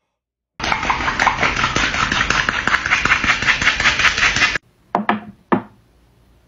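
Aloe vera gel being scraped off a cut aloe leaf, a dense squelch full of rapid tiny crackles lasting about four seconds, then two short knocks.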